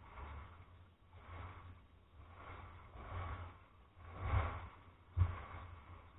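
Small waves washing in over a stony shore, the noise swelling and easing every second or so, with a low rumble underneath. A sharp knock comes a little after five seconds in.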